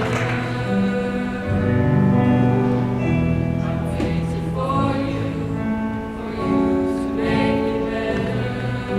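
A choir singing long, held chords. The tail of applause fades out in the first moment.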